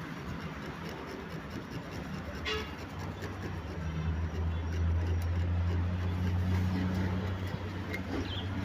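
A motor vehicle's engine running, a low steady hum that swells about three seconds in and holds, with a single sharp click shortly before.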